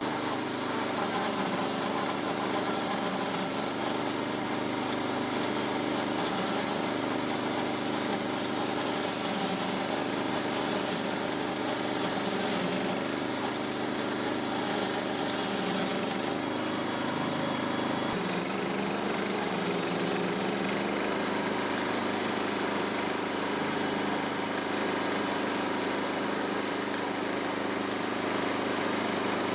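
Small gasoline engine running steadily. Its pitch shifts slightly about two-thirds of the way through.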